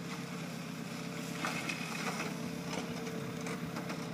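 An engine running steadily, with a steady whine above it and a few light clicks.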